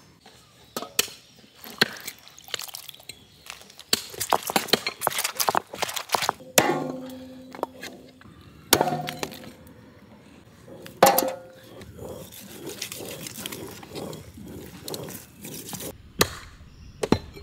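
A cleaver chopping mutton bones on a wooden chopping block: irregular sharp chops, with a quick run of them a few seconds in. A few louder strikes leave a short metallic ring.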